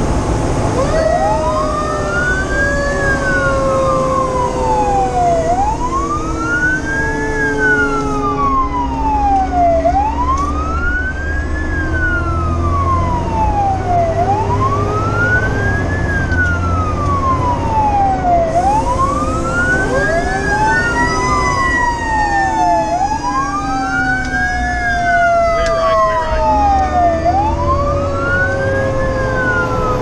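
Fire engine's electronic siren on a slow wail, rising and falling about every four seconds, heard from inside the cab with the truck's engine rumbling underneath. Twice, about a second in and again about twenty seconds in, a mechanical Q siren is wound up and then coasts slowly down in pitch.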